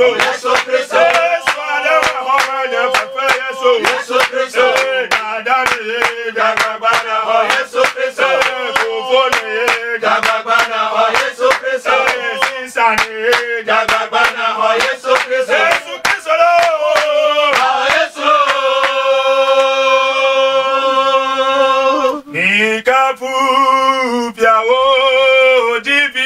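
Men singing a worship song together, with steady hand clapping in time. About two-thirds through the clapping stops and the voices hold long notes before the song moves on.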